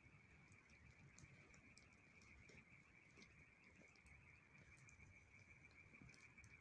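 Near silence: faint, scattered crackles from a burning campfire over a steady faint high-pitched hum.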